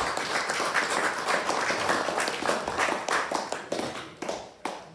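A small group of people applauding with hand claps, dying away near the end.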